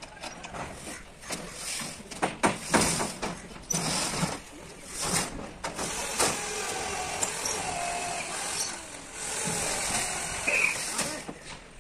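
Steel floor sheets being levered and shifted on a truck body's steel frame: sharp metal clanks and knocks, then a longer metal-on-metal scraping as a sheet slides across the frame.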